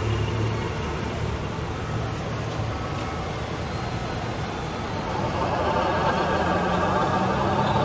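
Steady engine-like vehicle running noise, growing louder and brighter about five seconds in.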